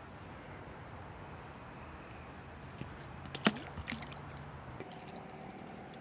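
Quiet creek-bank ambience with faint insects chirping about every half second, and a few light clicks and knocks around the middle from handling fishing gear.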